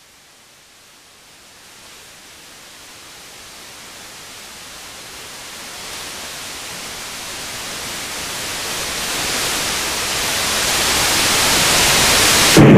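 A rushing hiss that swells steadily from faint to loud, then breaks into a sudden deep boom right at the end.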